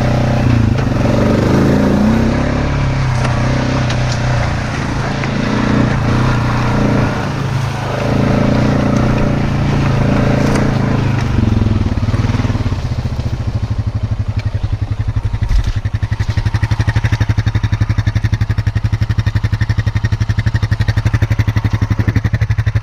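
Honda Rancher 420 ATV's single-cylinder four-stroke engine running while the quad drives through grass and mud, then settling to a steady idle about thirteen seconds in.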